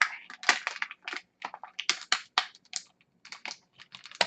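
Plastic packaging and Beyblade parts being handled while unboxing: a string of irregular small clicks and crinkles.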